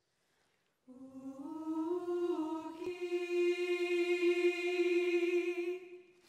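A voice singing one long unaccompanied note: it enters about a second in, slides up in pitch, then holds steady for about three seconds before stopping shortly before the end.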